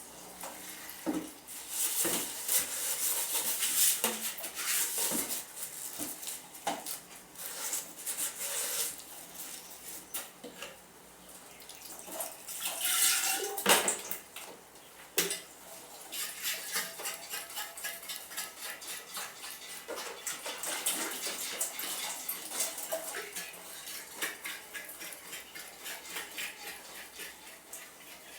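Dishes and cutlery clinking and clattering as they are washed by hand, with water splashing.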